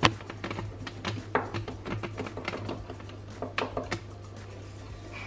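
A knife cutting gingerbread dough on a baking tray: irregular light clicks and taps, over a steady low hum.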